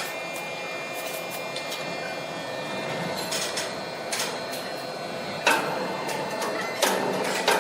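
Sawmill machinery running with a steady high whine, and a few sharp knocks of timber or metal near the end.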